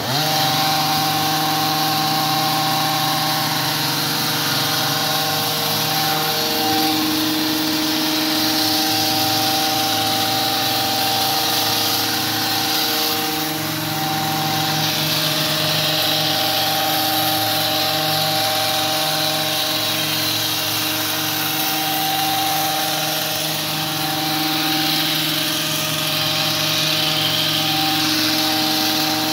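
Gas hedge trimmer engine running at high speed while cutting a shrub, its pitch shifting slightly as it works. It revs up at the very start and drops back at the end.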